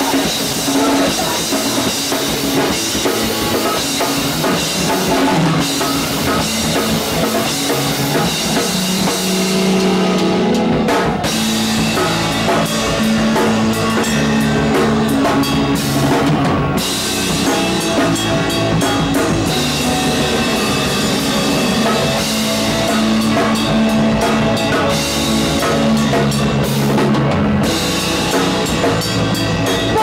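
A live rock band playing loudly, with the drum kit prominent: kick, snare and cymbals over electric guitars and bass. The cymbals drop out briefly three times.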